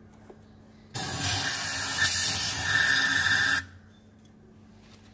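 Aerosol can of throttle body cleaner sprayed into a throttle body in one continuous burst: a loud hiss that starts about a second in, lasts about two and a half seconds and cuts off sharply.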